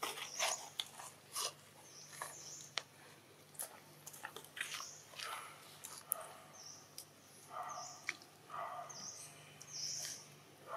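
A macaque chewing coconut flesh, with soft crunching clicks, while short high bird chirps repeat every second or two.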